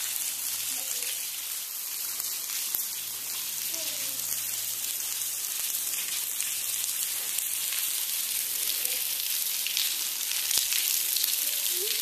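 Waterfall spattering onto rock and sand, a steady high hiss.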